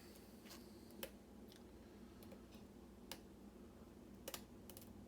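Faint, scattered clicks of a lock pick and tension wrench working the pins of a pin-tumbler challenge lock, with sharper clicks about a second in, at about three seconds and a quick pair near four and a half seconds.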